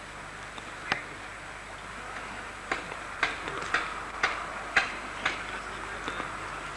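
A run of sharp clicks or taps, about two a second, over a steady hiss.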